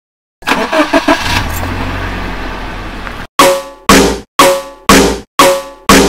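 A truck engine running with a low rumble, with a few knocks near its start. A little over three seconds in, a railroad crossing alarm bell starts clanging, about two strikes a second, each ringing out and dying away before the next.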